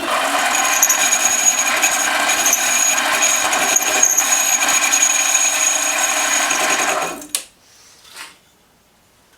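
Harbor Freight 7x10 mini lathe taking a facing cut on a 6061 aluminium tube, the tool chattering over a steady whine for about seven seconds before it stops suddenly. The speaker wonders whether the chatter comes from the tube still wobbling in the chuck.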